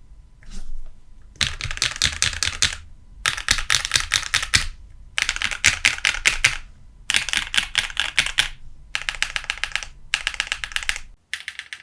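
Typing on a Keychron Q2 mechanical keyboard with Akko CS Vintage White switches and a tape mod: rapid keystrokes in about six bursts of a little over a second each, with short pauses between them.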